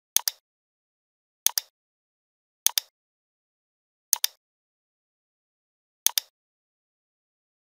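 Five computer mouse clicks spread over about six seconds, each a quick pair of sharp ticks as the button is pressed and released.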